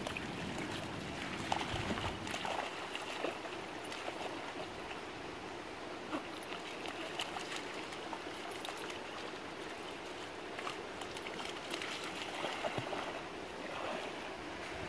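A puppy splashing and pawing in shallow lake water: uneven bursts of splashing and trickling, a little louder about two seconds in and again near the end.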